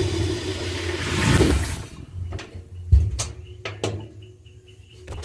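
Washing machine drum spin running down and coming to a stop within the first two seconds, followed by a few sharp clicks and knocks, one heavier thump about three seconds in.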